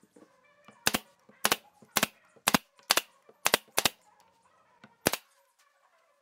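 Pneumatic brad nailer firing brads into a wooden cabinet top: eight sharp shots, about two a second, with a pause before the last one.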